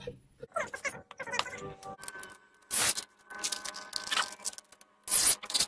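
Cordless drill run in two short bursts, about two and a half seconds apart, driving screws into the wooden seat.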